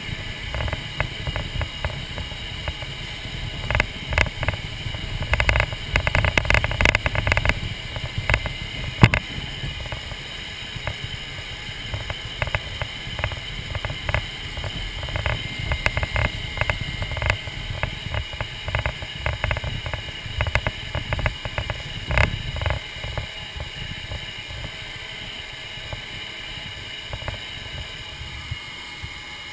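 MiG-29UB's twin RD-33 jet engines at taxi power, heard inside the cockpit: a steady whine over a low rumble. Frequent knocks and rattles come as the jet rolls along the taxiway, fewer in the last few seconds.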